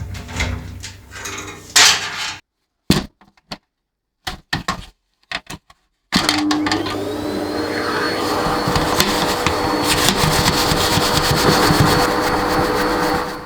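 Handling clatter, then a few short clipped bursts of noise. About six seconds in, an electric dust-cleaning motor starts up: its whine rises briefly, then it runs steadily with a loud airy rush, cleaning dust out of the PC.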